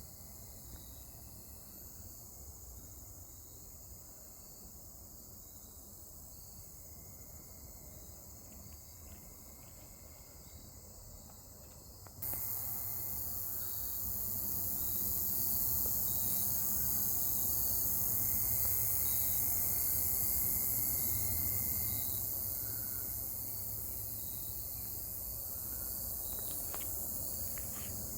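Steady high-pitched chirring of crickets and other insects, jumping abruptly louder about twelve seconds in.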